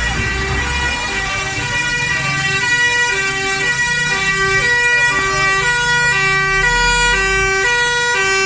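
Fire engine's two-tone siren, alternating steadily between a high and a low pitch about once a second, with a low engine rumble beneath.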